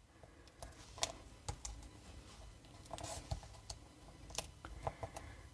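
Faint, irregular light clicks and taps of a small cardstock sentiment strip being handled and pressed into place on a handmade card on a craft mat.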